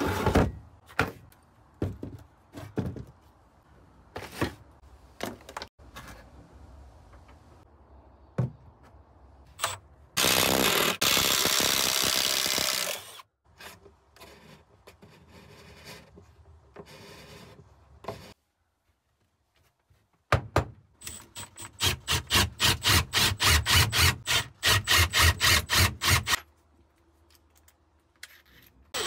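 Clicks and knocks of a plastic bit case being opened, then a power drill boring through timber shed wall for about three seconds. Later a Milwaukee FUEL impact driver hammers screws into a wooden batten in a long run of rapid, evenly repeated pulses.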